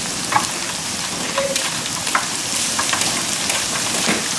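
Crab rangoon wontons deep-frying in a pan of hot oil: a steady sizzle with a few sharp crackles and pops.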